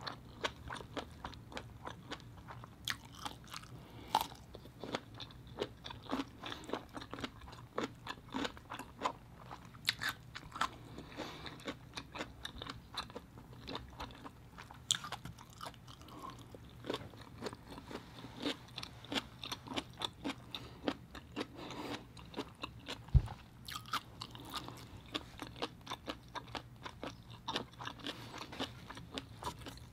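Close-miked chewing of crisp cucumber spears dipped in sauce: many irregular wet crunches and smacks. One low thump about three-quarters of the way through, over a faint steady hum.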